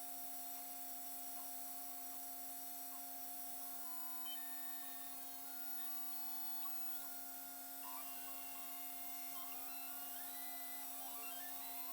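Custom-built 5-axis CNC machine running while machining a two-stroke cylinder sleeve: a steady hum, with whining tones from the axis motors that jump from pitch to pitch as the axes change speed, busier in the second half.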